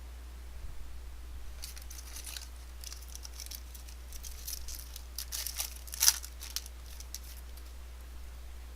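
Foil trading-card pack wrapper being torn open and crinkled: a run of short crackling rustles over a few seconds, the sharpest tear about six seconds in.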